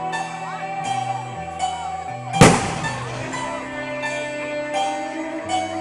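Music with held notes playing throughout. About two and a half seconds in, a single loud bang from an aerial firework shell bursting rings out and dies away.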